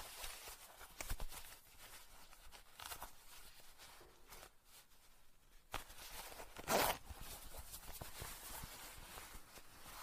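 A zipper pulled in several short strokes, the loudest a sharp zip about seven seconds in.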